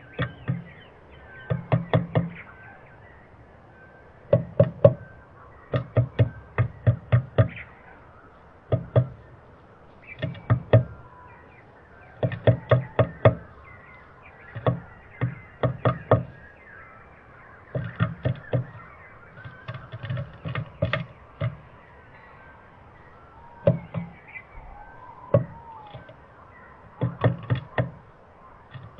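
Eurasian blue tit pecking at a wooden nest box: quick runs of about four to eight sharp taps on the wood, each run followed by a short pause, repeating every second or two.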